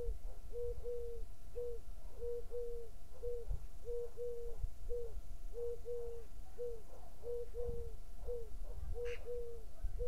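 Short, soft hooting calls on one low pitch, repeated about twice a second in singles and quick pairs, over a low wind rumble. There is a brief higher chirp about nine seconds in.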